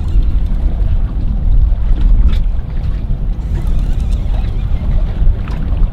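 Low, steady rumble of wind buffeting the microphone mixed with the boat's outboard motor, which is backing the boat down on a hooked halibut. A couple of short clicks come about two seconds in and again near the end.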